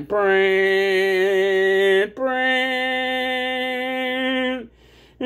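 A man's voice singing or chanting long held notes, three in a row of about two seconds each, the pitch stepping between them, and stopping shortly before the end.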